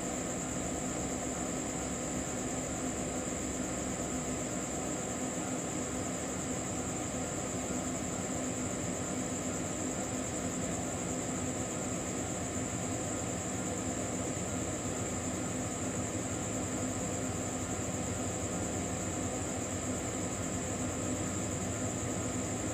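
Steady, unchanging night ambience: a constant high-pitched drone with a low hum underneath.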